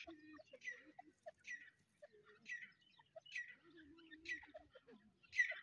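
Grey francolins (teetar) calling softly: a short, sharp high note repeated about once a second, with quieter low clucking notes in between.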